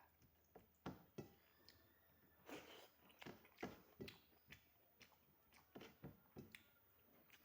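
Faint chewing of a mouthful of food, with soft wet mouth clicks coming irregularly every half second to a second or so.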